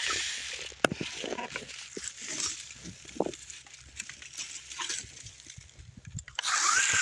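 RC rock crawler's drivetrain whining under throttle, dying away at the start. Scattered clicks and scrapes of the chassis and tyres on rock follow, with a sharp knock about a second in. The whine comes back near the end.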